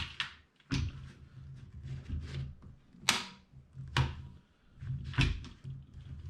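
Hard clicks and clacks of a Mag Pump 9mm magazine loader and a pistol magazine being handled and fitted together, four sharp clacks standing out among smaller ticks.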